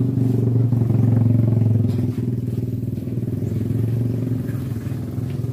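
A small engine running steadily with a low, even hum, a little louder for the first two seconds.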